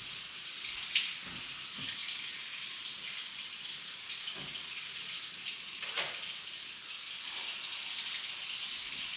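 Water running steadily, a continuous hiss, with a few faint knocks and clinks.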